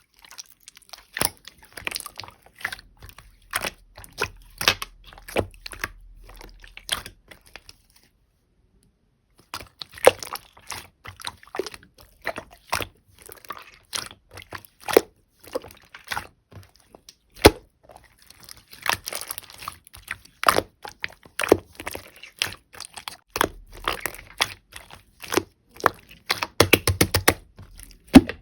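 Red clear slime being pressed, poked and stretched by hand, giving a quick string of sticky clicks and small pops, with a brief break about a third of the way through.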